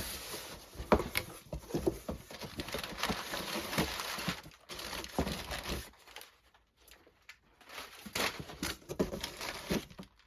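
Cardboard box and its packaging being opened and handled: irregular crinkling and rustling with scattered light knocks, dying down for a moment a little past the middle.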